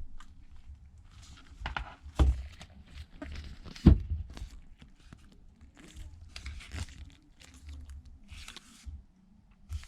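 Handling noise from an iPad being worked on, with its replacement screen just lined up and set in place: scattered clicks, knocks and rustling. Two sharper knocks come about two and four seconds in.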